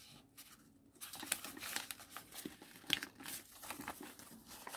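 Faint rustling and crinkling of white paper as hands fold a wing of an origami eagle in half. The rustling starts about a second in, with a sharper crackle about three seconds in.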